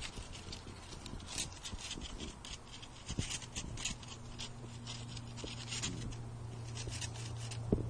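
Dry plant stems and leaves scraping and rustling on paving stones as a cat paws and plays with them, in many quick short scratches, over a steady low hum.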